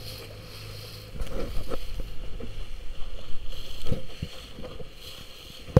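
Wind buffeting the microphone and water splashing and slapping around a boat in choppy open water, growing louder about a second in, with a sharp knock at the very end.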